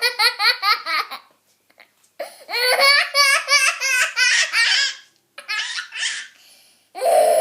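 Young child laughing hard in several bouts of rapid, high-pitched belly laughs, with short pauses between the bouts.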